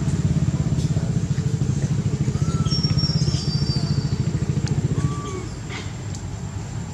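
A small engine running steadily with a fast, even low throb. It drops in level about five seconds in. A few faint short chirps sound above it.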